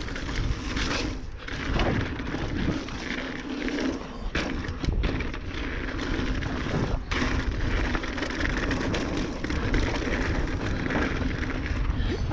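Mountain bike ridden down a dirt trail: a steady rumble and hiss of wind on the microphone and tyres on the ground, with a few sharp knocks from the bike over rough ground.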